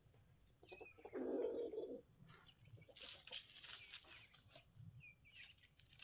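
Free-ranging chickens and turkeys, faint: a low call about a second in, a short flutter of wings around three seconds, and a brief high chirp near the end.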